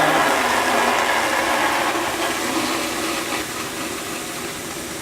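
Water from a garden hose running steadily into a bucket, gradually getting quieter.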